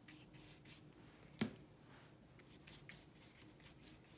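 Faint swishing of a paintbrush stroking white paint across heavy painting paper, a quick series of short brush strokes, with one sharp click about a second and a half in.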